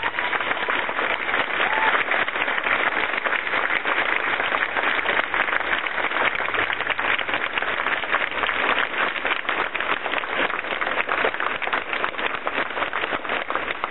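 Large crowd applauding, a dense, steady clapping that holds throughout.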